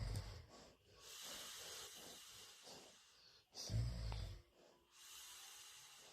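Golden retriever snoring in its sleep: a low rumbling snore right at the start and another about three and a half seconds in, with a breathy hiss between them.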